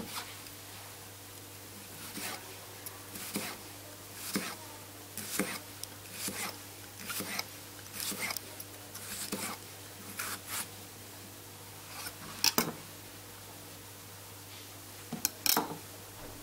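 Kitchen knife slicing into a cucumber on a plastic cutting board: a crisp cut about once a second, with a couple of sharper knocks near the end.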